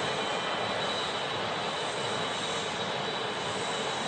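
Steady factory-floor machinery noise: an even hiss and rumble with a faint, steady high whine over it, unchanging throughout.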